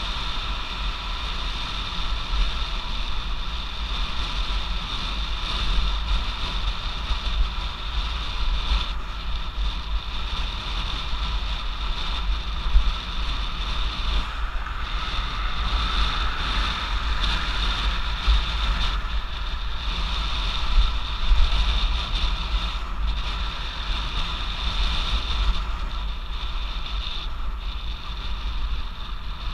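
Riding noise of a Stromer ST2-S electric bicycle at speed: wind buffeting the microphone as a steady low rumble, with a continuous high-pitched whine over it.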